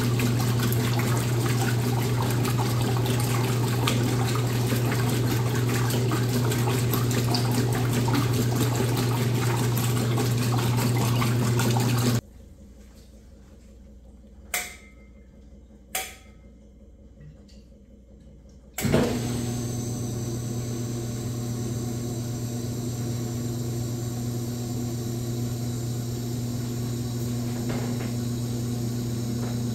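Washing machine filling with water over a steady electrical hum. About twelve seconds in the water cuts off abruptly and two sharp clicks follow. About six seconds later the motor starts with a thump and runs with a steady hum.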